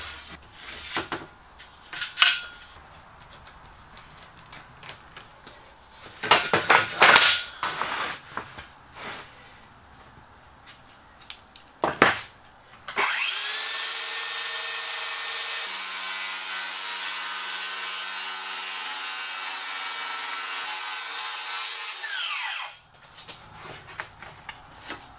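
Cordless circular saw spinning up about halfway through, running steadily under load as it rip-cuts a plywood sheet along a clamped straight edge for nearly ten seconds, then winding down. Before it, scattered knocks and clatter of the saw, clamp and straight edge being set on the sheet.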